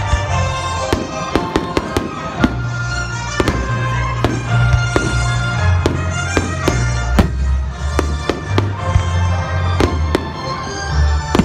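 Fireworks shells bursting: many sharp bangs in quick succession, some close together, over loud music with a heavy bass line.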